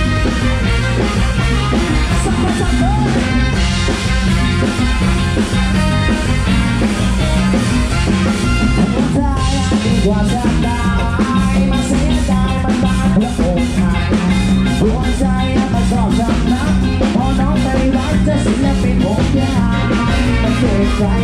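Live Thai ramwong (luk thung dance) band playing an instrumental passage between sung verses: drum kit and congas keep a steady, upbeat dance rhythm under electric bass, electric guitar and keyboard.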